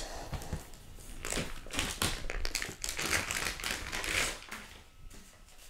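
Handling of a cardboard box and a filament spool in a clear plastic bag: the plastic crinkles and crackles in irregular strokes, most strongly a few seconds in.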